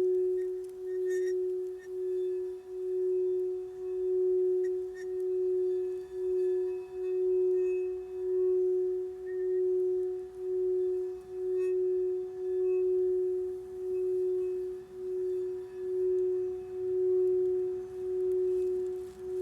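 Singing bowl sounding one steady, sustained tone that swells and fades about once a second, with a fainter higher overtone above it.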